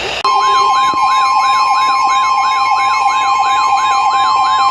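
Emergency alert tone that starts abruptly: a steady high tone with a siren-like sweep over it, rising and falling about three times a second.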